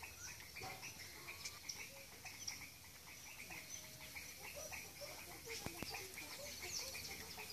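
Faint background of small birds chirping and whistling in many short calls, with a brief soft knock about five and a half seconds in.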